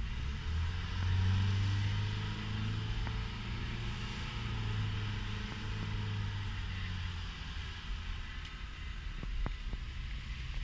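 A car driving on wet pavement: a steady low engine and road drone with tyre hiss. The drone eases off about seven seconds in, and a few faint clicks come near the end.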